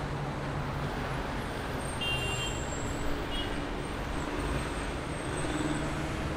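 Steady road traffic noise of cars in a busy city street, with a brief faint high tone about two seconds in.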